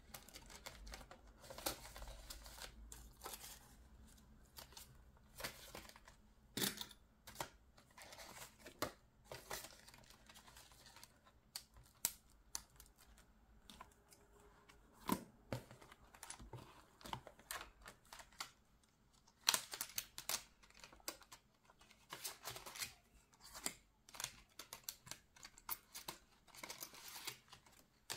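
Paper being handled on a table: rustling and crinkling with many small clicks and taps, with a busier stretch of rustling about twenty seconds in.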